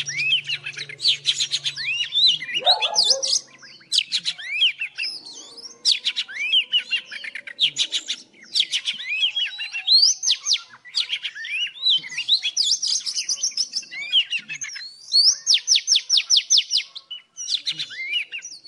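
Oriental magpie-robin singing: varied phrases of gliding whistles and fast rattling runs of repeated notes, separated by short pauses.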